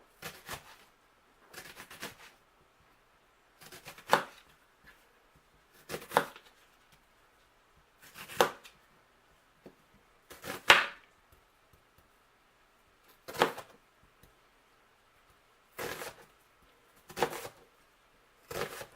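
Kitchen knife slicing an onion thinly on a cutting board: separate sharp cuts, about one every two seconds, each ending in a knock of the blade on the board.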